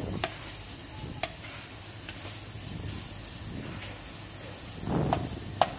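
Sliced onions sizzling in hot oil in a kadai while a wooden spoon stirs them, with a few sharp taps of the spoon against the pan. There are about five taps, the last two near the end.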